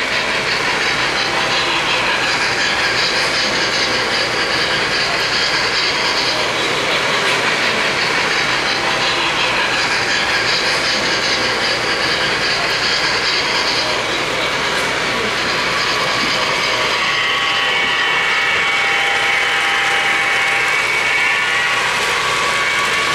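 O-gauge model trains running on three-rail FasTrack: a steady whirring and rattling of wheels and motors on the track, with a faint added tone in the last few seconds.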